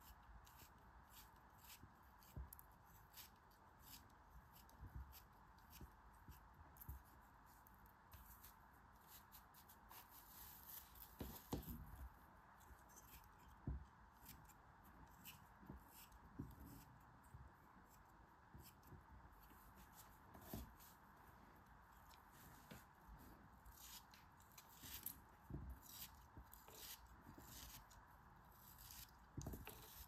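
Craft knife blade cutting and scraping through packed kinetic sand, which crumbles away: soft, irregular gritty crunches and scratches over a faint steady hiss.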